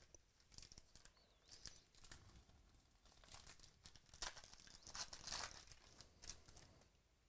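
Foil trading-card pack wrapper being torn open and crinkled by hand, faint, with a sharp crackle about four seconds in and the busiest crinkling just after five seconds.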